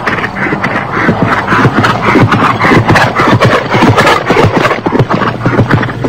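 Horse galloping: a fast, continuous run of hoofbeats striking the ground.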